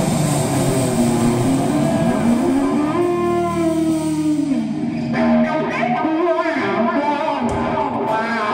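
Electric guitar playing a live lead solo: long sustained notes bent and slid up and down in pitch, with wavering vibrato.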